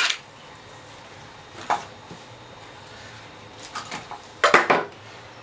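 Short metallic clicks and knocks of hand tools and engine parts being handled during an engine teardown: one knock about two seconds in, a few light clicks near four seconds, then two louder sharp clacks.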